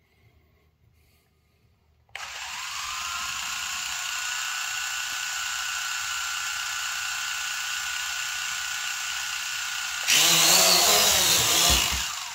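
Eachine E520S quadcopter's four small electric motors start spinning about two seconds in, with a steady high whine. Near the end they spin up much louder for take-off, the pitch wavering, then wind down as the drone fails to hold position and lurches forward instead of hovering.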